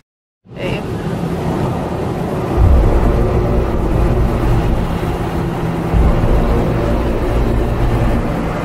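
Automatic car wash running, heard from inside the car: a dense, steady noise of machinery and spray over a low rumble, which starts about half a second in and swells about two and a half seconds in and again around six seconds.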